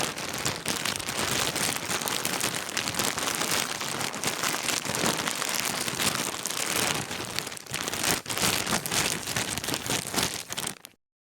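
Dense crackling noise full of fine irregular clicks, fairly steady in level, cutting off suddenly near the end.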